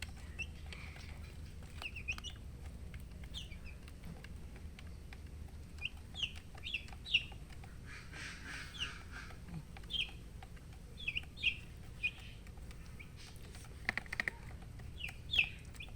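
Baby chicks peeping: short, high, falling chirps, singly and in quick runs, scattered throughout over a steady low hum.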